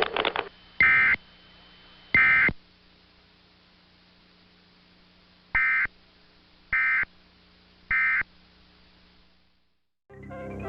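Emergency Alert System digital data bursts: five short, harsh, buzzy two-tone bursts, two and then three about a second apart. These are the SAME code's end-of-message signal that closes the alert after the spoken test message. Music starts just before the end.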